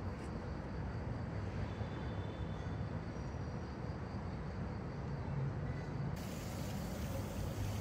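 Steady low rumble of outdoor urban background noise, with no distinct event; the hiss brightens abruptly about six seconds in.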